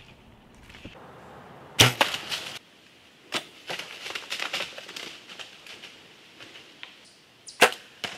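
Two bow shots at deer about six seconds apart, each a single sharp crack of the shot. After the first, a deer runs off through dry fallen leaves with a crackling, rustling run of footfalls lasting a few seconds.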